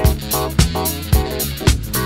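Background music with a steady drum beat, about two beats a second, over bass and melodic notes.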